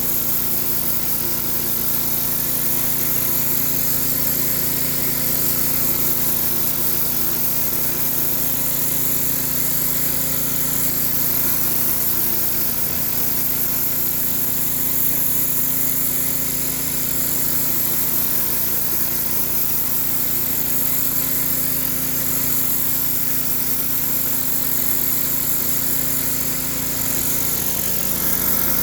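3100 psi gas-engine pressure washer running steadily under load, with the hiss of water spraying from a rotary surface cleaner onto concrete. The engine note drops slightly near the end.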